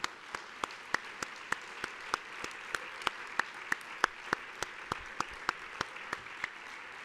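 An audience applauding, with one person's louder claps close to the microphone standing out at a steady pace of about three a second.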